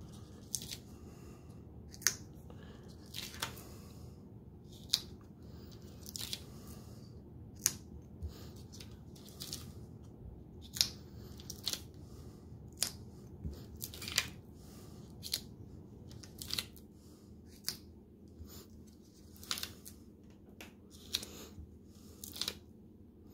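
Self-adhesive cork dots being peeled one by one off their paper backing sheet and pressed onto the undersides of tea light holders: an irregular string of short, sharp crackles and clicks, about one or two a second.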